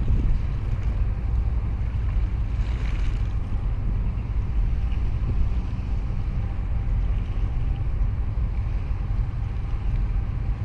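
Steady low rumble of a boat under way on open harbour water, with wind buffeting the microphone and water washing past; a brief louder hiss about three seconds in.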